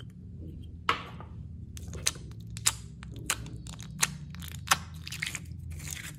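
Slime being worked by hand, giving a run of sharp pops and crackles, roughly one every half second to second.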